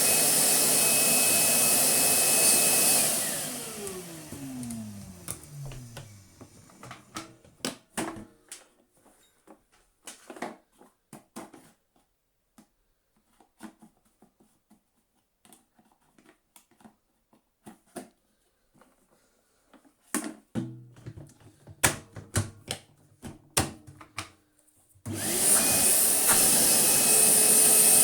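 Titan TTB351 wet and dry vac motor running, then switched off about three seconds in and winding down with a falling whine. A scattering of clicks and knocks follows, and near the end the motor is switched on again and runs.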